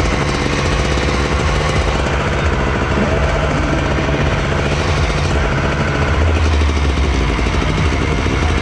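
Enduro dirt bike's engine running loudly and steadily, close to the onboard camera.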